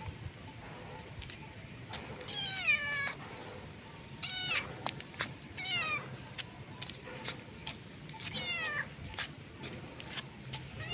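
Domestic cat meowing four times at uneven intervals, each meow falling in pitch, with another meow starting near the end.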